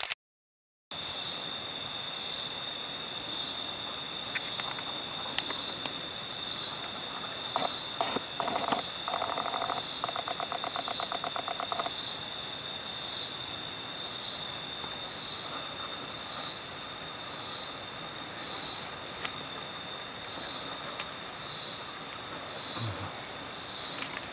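Steady, shrill chorus of insects, several high-pitched tones held without a break, with the sound cutting out for about a second at the very start. From about eight seconds in, a lower, rapidly pulsing call joins for about four seconds.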